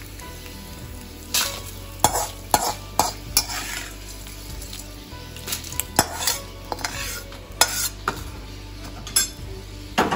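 A perforated metal skimmer scraping and clinking against a metal kadai as fried dal, nuts and dried red chillies are scooped out, with oil sizzling in the pan. The sharp scrapes come irregularly, several in quick succession.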